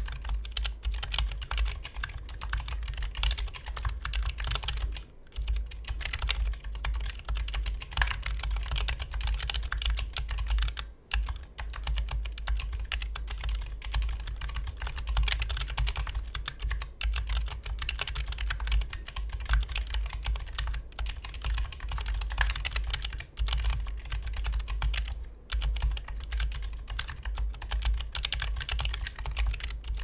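Continuous typing on an Ergodox EZ split keyboard with ZealPC 62g Zilents V2 silent tactile switches: a dense run of keystrokes with a few short breaks.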